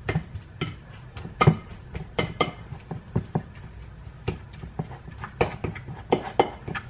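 A utensil repeatedly clinking and knocking against a dish while mixing butter into a mashed baked potato, in irregular taps about two or three a second.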